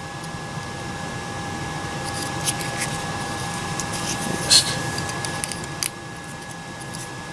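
Fingers handling and turning a small 3D-printed plastic cube: a few light clicks and rubs, with one brief scratchy rustle near the middle. Under them runs a steady background hum with a faint high whine.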